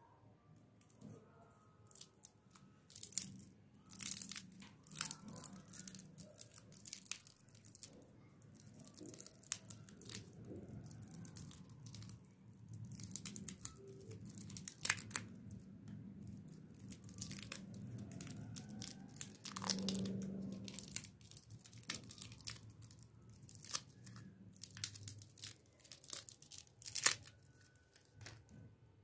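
Plastic lollipop wrapper crinkling and tearing as it is peeled off by hand, in irregular sharp crackles with short pauses.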